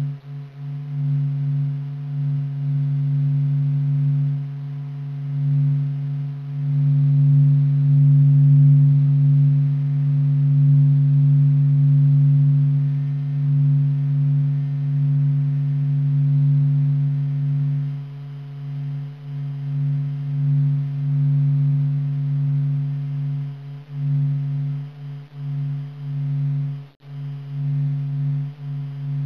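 Sonification of the Sun: a steady low droning hum with fainter higher overtones, slowly swelling and fading in loudness, loudest in the first half and with a brief drop-out near the end.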